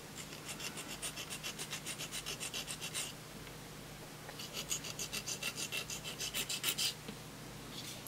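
Copper contact of a brake light switch plunger scraped back and forth on a diamond sharpening plate, in quick even strokes of about six a second. There are two runs of strokes with a pause of about a second between them. The filing grinds down the arc-burnt, pitted contact.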